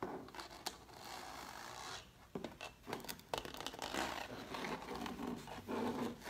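Translucent plastic document folder being handled: a rough scratching and rubbing on the plastic for the first two seconds or so, then a run of clicks and taps from fingernails and fingers on its surface.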